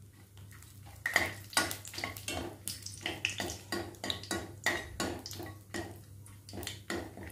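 Metal ladle clinking and scraping against the kadai as whole spices are stirred in hot oil, in quick repeated strokes starting about a second in, over a faint sizzle of the frying spices.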